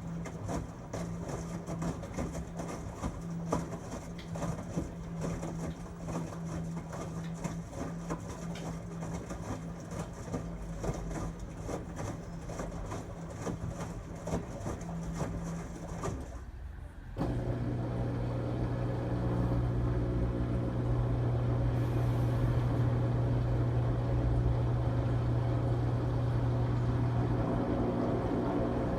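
LG Tromm WD-CR101C front-loading washing machine running on its quick-wash cycle: a steady hum with a busy churning texture on top. About seventeen seconds in the sound dips briefly, then gives way to a louder, steadier, lower hum.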